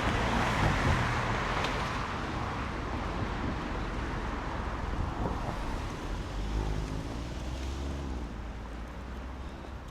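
Road traffic on a wet road: tyre hiss from passing vehicles, loudest in the first couple of seconds and slowly fading, over a low engine rumble.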